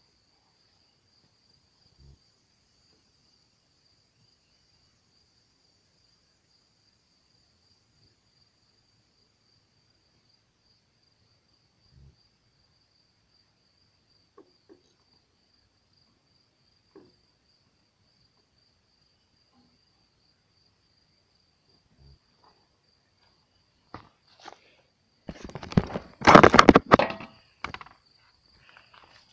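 Insects chirring steadily at a high pitch, with a few faint knocks. Near the end, loud rustling and knocking as the camera is picked up and handled.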